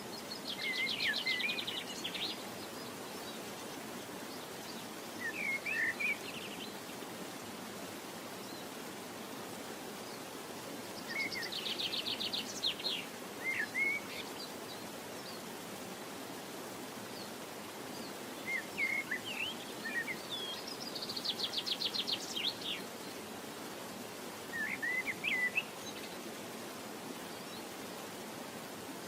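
Birds calling over a steady hiss: a rapid trill three times, about ten seconds apart, with short chirps in between.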